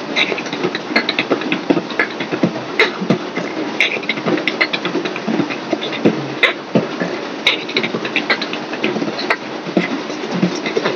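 Solo beatboxing: a fast, unbroken run of sharp vocal clicks and snare sounds over a continuous low undertone.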